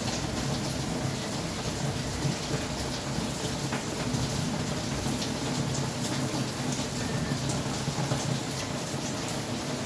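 Steady rain falling, a continuous even hiss flecked with small drop ticks.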